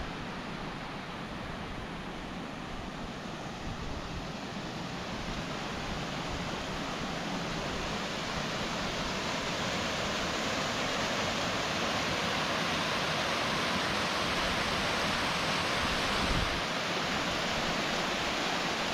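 Steady rushing water, an even hiss that grows gradually louder through the middle and then holds level.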